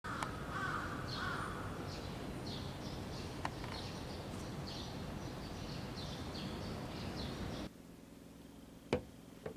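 Outdoor ambience: a steady background hiss with many short, high chirps repeating every fraction of a second. It cuts suddenly to a quiet room, where a ceramic mug is set down on a table with a sharp knock, followed by a lighter knock.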